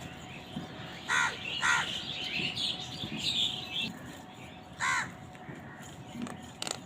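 Crows cawing: two harsh caws in quick succession about a second in and a single caw near five seconds, with fainter, higher bird calls in between.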